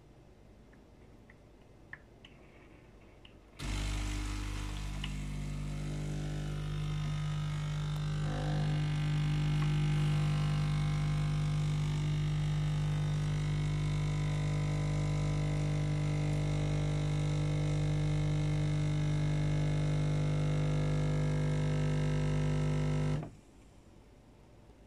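Siemens EQ.500 integral bean-to-cup coffee machine running a cycle: a steady, even hum starts a few seconds in, runs for about twenty seconds and stops suddenly near the end.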